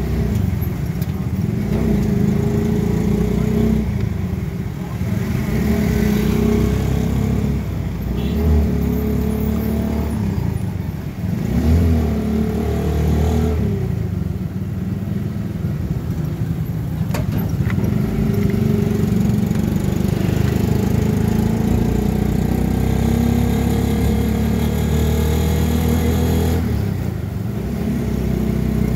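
Qingqi motorcycle rickshaw's small engine running under way, heard from on board, with road noise. The engine note dips and picks up again several times.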